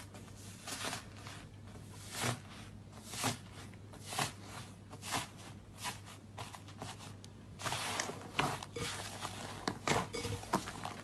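Slime being played with by hand, giving sharp, crackly clicks and pops about once a second. About eight seconds in, these turn into denser, faster crackling.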